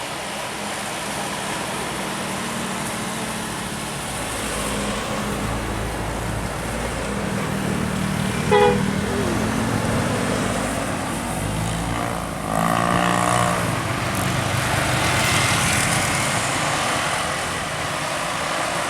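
Large bus engines running with road noise as buses go by, broken by a very short horn toot about eight and a half seconds in and a longer, wavering blast of a multi-tone telolet bus horn about twelve and a half seconds in, lasting about a second.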